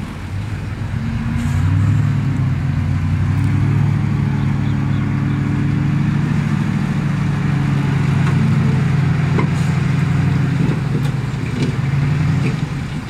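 Diesel dump truck engine run up and held at high, steady revs to drive the hydraulic hoist that raises the tipper bed, easing back near the end, with dirt spilling off the tipped beds.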